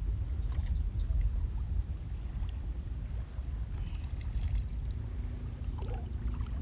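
Wind rumbling on the microphone, with faint sloshing and small splashes of legs wading through shallow seawater over a reef.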